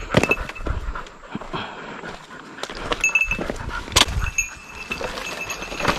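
A hunting dog moving close by through dry twigs and leaf litter, with crunching footsteps on the forest floor and a sharp snap about four seconds in.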